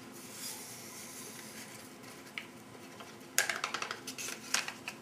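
Instant tea packet being handled over a stainless steel cup: a soft rustle, then a run of sharp crinkles and clicks from about three and a half seconds in.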